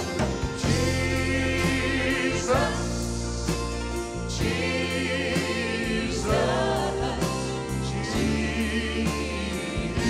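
Live gospel music: a grand piano and band with a steady beat under backing singers holding long notes with vibrato, between lines of the song.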